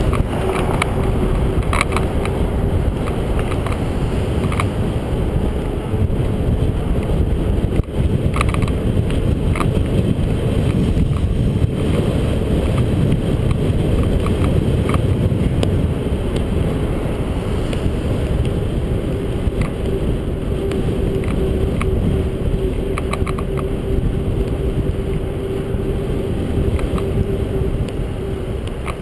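Wind rushing over the microphone of a camera on a moving bicycle, with road noise, a steady hum and scattered small knocks and rattles.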